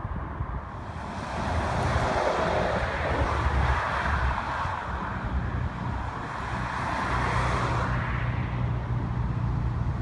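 Cars passing on a nearby road: tyre and engine noise swells up and fades twice, over a steady low rumble.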